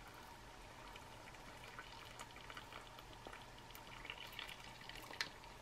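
Water poured from a metal canteen cup into a foil pouch of freeze-dried fish, peas and potatoes to reconstitute it: a faint trickle with light crackling and a sharper tick about five seconds in.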